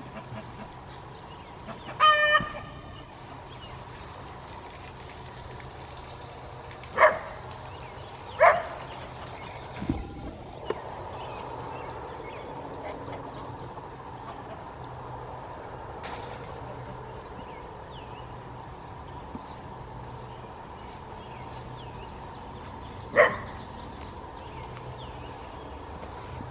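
A dog barking four separate times, spread out with long gaps between, over a faint steady high whine.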